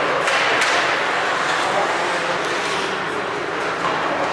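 Ice hockey game noise in a rink: a steady wash of skating and crowd sound with faint voices, and two sharp clacks about half a second in.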